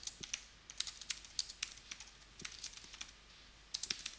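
Typing on a computer keyboard: quick runs of key clicks with brief pauses between them.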